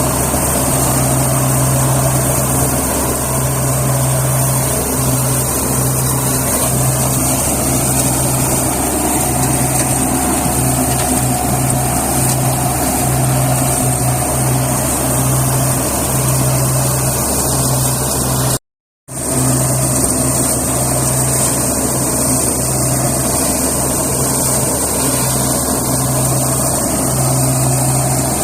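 Engine-driven onion stalk cutter (multipurpose weeder) running steadily at work, a loud, even drone with a low hum that wavers in strength. The sound drops out completely for a split second about two-thirds of the way through.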